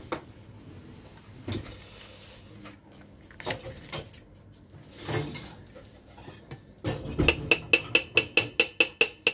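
A newly bought curry powder container being unsealed and opened, with scattered clicks and small knocks, ending in a quick run of about a dozen sharp taps with a light metallic ring, five or six a second.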